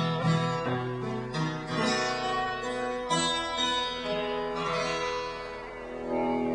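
Guitar playing single plucked notes and chords that ring on, an instrumental passage after the last sung verse of a folk ballad.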